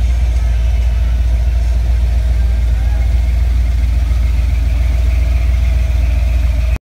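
Chevy 350 small-block V8 with Flowmaster mufflers idling steadily, a deep even rumble, until the sound cuts off abruptly near the end.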